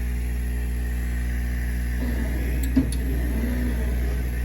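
K40 laser cutter running with a steady hum, and from about halfway through its stepper motors whine with shifting pitch as they drive the laser head around a framing pass of a circle; a single sharp click near the end.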